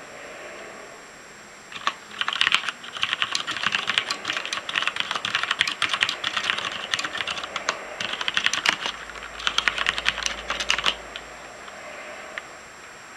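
Typing on a Noppoo Choc Mini mechanical keyboard with Cherry MX Black linear switches: fast runs of keystroke clacks. The typing begins about two seconds in, breaks off briefly partway through, and stops a couple of seconds before the end.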